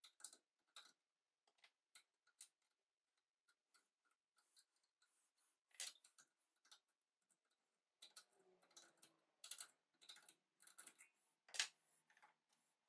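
Faint, scattered small metal clicks and scrapes of a tap and tap wrench being handled against a cast-iron part held in a vise, with one louder clack near the end.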